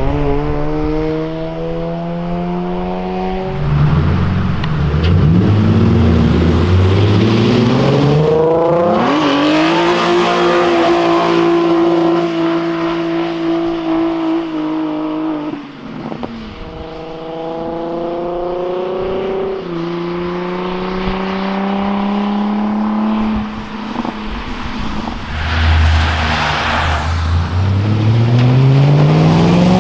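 Several sports cars accelerating hard away one after another on a wet road, their engines revving up and shifting up through the gears, with a new car revving up near the end.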